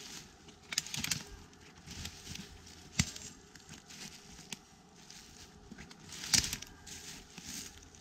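Woodland debris being handled and trodden on, rustling, crackling and snapping irregularly, with a sharp snap about three seconds in and a louder crackling rustle just after six seconds.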